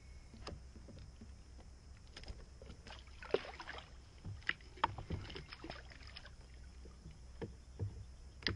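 Water splashing and light knocks against a fishing kayak as a northern snakehead is lowered over the side and released, with the busiest splashing about three and a half seconds in.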